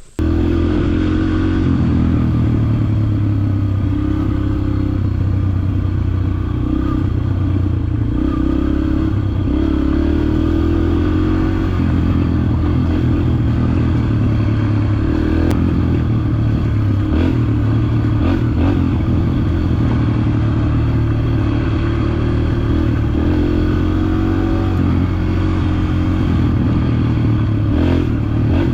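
Yamaha TT-R125 dirt bike's small four-stroke single engine running while being ridden on a trail, its revs rising and falling with the throttle, with a few sharp knocks and clatter from the bike over the ground.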